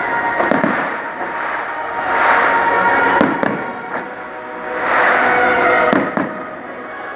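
Fireworks display: aerial shells bursting with several sharp bangs and crackling, over loud music playing throughout.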